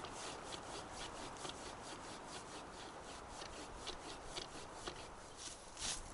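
A hand saw rasping back and forth on a branch in quick, even strokes, the last couple louder. The branch is not cut through.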